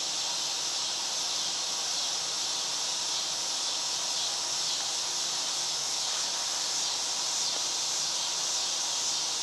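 Steady summer woodland insect chorus: a continuous high-pitched hiss that holds unchanged throughout.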